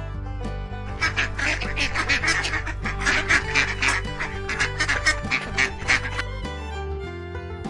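Ducks quacking in quick repeated calls from about a second in until about six seconds, over background music.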